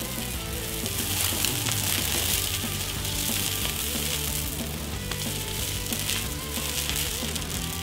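Thermite of aluminium powder and iron oxide burning white hot in flower pots, a loud continuous fizzing hiss like frying as it throws off sparks, with background music underneath.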